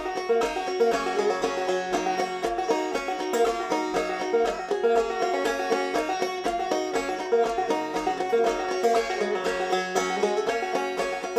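Music: fast plucked-string notes over a steady low beat of about two beats a second.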